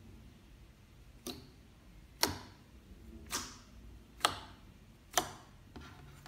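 Fingertips poking into a flat sheet of clear slime, making five sharp, sticky clicking pops about a second apart.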